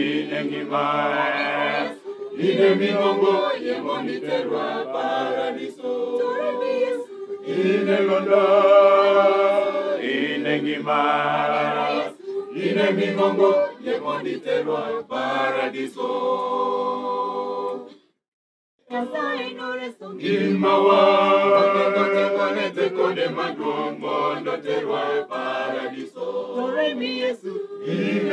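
Church choir of men and women singing a hymn a cappella, in phrases with short breaths between them. The sound cuts out completely for under a second about eighteen seconds in.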